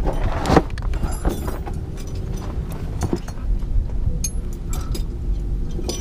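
Scuffing and handling noise of a person shifting on dirt under a junked van, with a scatter of light metallic clinks from a hand-held adjustable wrench, over a steady low rumble.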